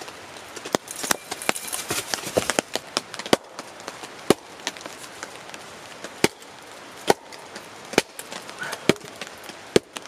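A wooden mallet striking the back of a froe driven into a wood round, splitting off roof shingles. It gives sharp knocks, clustered in the first few seconds and then about one a second.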